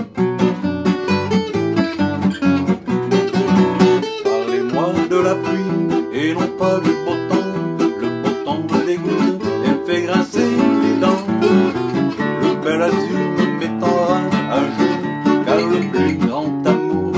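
Two acoustic gypsy-jazz-style guitars playing together, one strumming the rhythm and the other picking a lead line, with a man's voice singing over them from about four seconds in.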